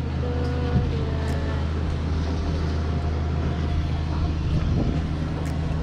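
An engine running steadily with a low, even drone, with a few faint clicks over it.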